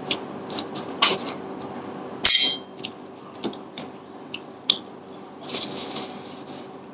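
Close-up eating sounds: wet mouth noises of chewing and sucking, with many short clicks of snail shells knocking together as fingers pick through the curry on the plate. Two louder noisy sucks or smacks come about two seconds in and again near the end.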